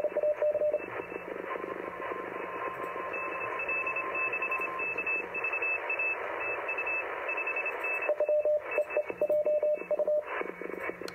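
Morse code (CW) signals heard through an RGO ONE shortwave transceiver's receiver on the 20 m band over steady band hiss. A strong station keying a tone of about 600 Hz stops after about a second. A weaker station keying a higher tone, roughly 430 Hz away, comes through alongside other faint Morse, and the strong station resumes keying about eight seconds in.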